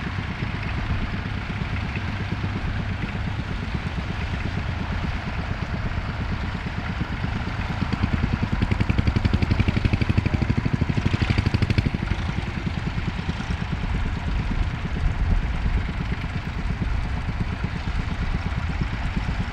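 Tractor engine running steadily with a regular firing beat while ploughing, louder and more pronounced for a few seconds in the middle.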